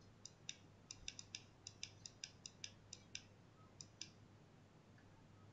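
Faint, quick clicks from a computer mouse, about twenty in the first four seconds, then they stop.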